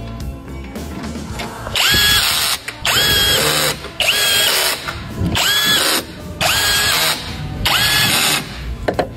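A handheld power tool run in a string of short bursts, about one a second, each with a motor whine that spins up quickly at the start. It is driving fasteners during a power steering rack repair.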